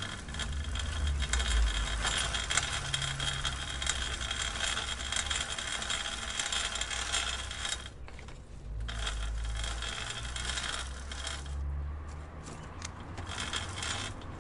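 Bicycle chain and drivetrain clicking and rattling in a rapid, dense patter over a low rumble. It drops out briefly about eight seconds in, resumes, then thins to scattered clicks near the end.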